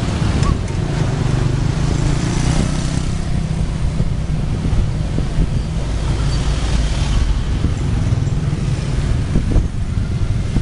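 Street traffic with motor scooters passing: a steady low rumble with wind buffeting the microphone, swelling twice as vehicles go by.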